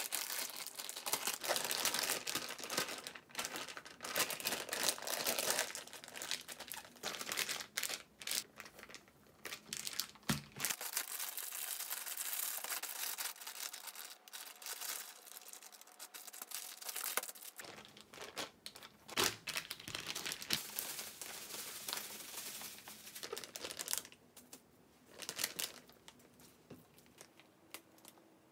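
Plastic zip-top freezer bags holding raw chicken breast crinkling in irregular bursts as they are squeezed, pressed and handled, thinning out near the end.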